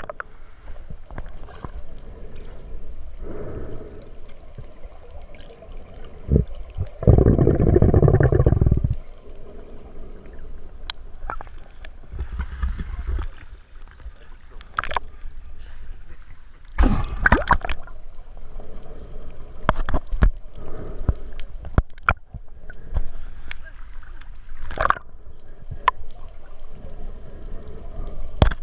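Muffled underwater sound of water gurgling and sloshing around a submerged camera, with a loud rush of water lasting about two seconds some seven seconds in and a scattering of sharp clicks and knocks.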